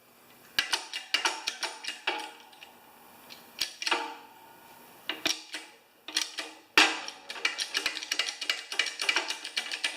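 Metal mower-spindle parts clinking and tapping together as they are handled and fitted, many irregular sharp clicks, some ringing briefly, busiest in the second half.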